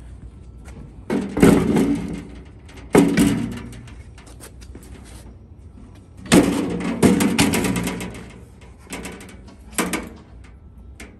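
Louvred sheet-metal cover of a Ryan LA28 core aerator being handled and fitted back over the belt and chain drive, clattering and scraping against the frame in several loud bursts: about a second in, at three seconds, a longer run from about six to eight seconds, and two smaller knocks near the end.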